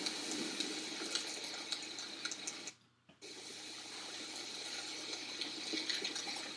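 Soundtrack of outdoor home-video footage playing back: a steady loud rushing hiss with scattered sharp clicks. It cuts out for about half a second near the middle.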